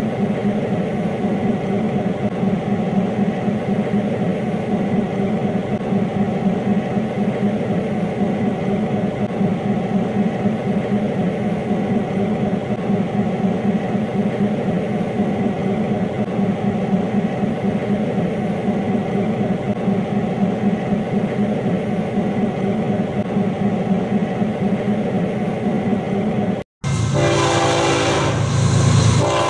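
Diesel locomotives running with a steady, even drone. Near the end it cuts off abruptly and an approaching freight train is heard, its horn sounding.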